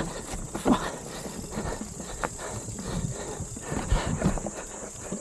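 Mountain bike on a rough, technical trail: irregular knocks and rattles. Insects keep up a steady high-pitched chirring in the background.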